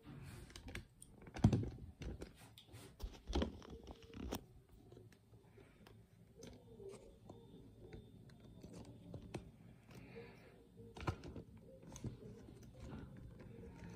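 Handling noise from a handheld phone camera being moved about: scattered clicks and rustles, with a few louder knocks in the first few seconds and another later on.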